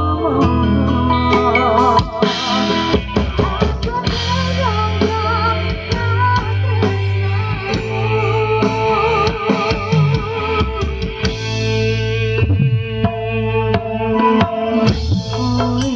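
Live Javanese gamelan music with drumming and low sustained gong tones, and a female sinden singing a wavering melody over it.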